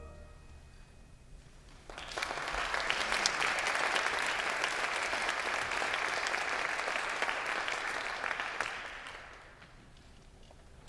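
Theatre audience applauding, breaking out about two seconds in and dying away near the end.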